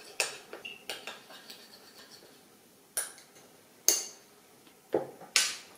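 A spoon clinking against a small dish in about six uneven taps and scrapes, working wasabi into a sauce.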